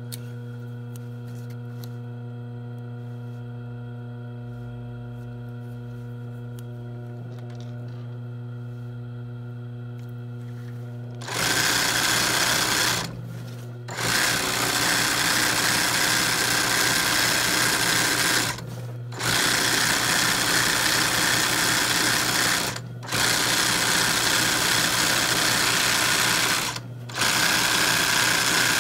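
Royal industrial sewing machine doing free-motion embroidery: its motor hums steadily for about ten seconds, then the needle stitches in five fast runs of a few seconds each, with brief pauses between them as the hooped cloth is moved.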